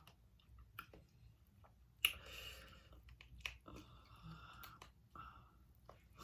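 Close-miked chewing of king crab meat, wet and soft, with a few sharp clicks, the loudest about two seconds in.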